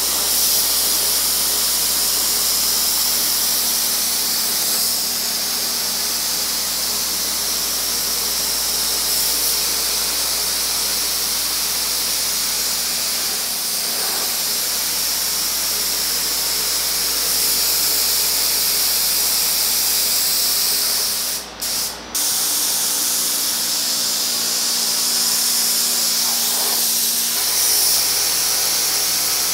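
Gravity-feed spray gun hissing steadily as it sprays polyester primer, run at high air pressure to atomize through a large 1.7 mm tip. The hiss cuts out twice, briefly, about two-thirds of the way through.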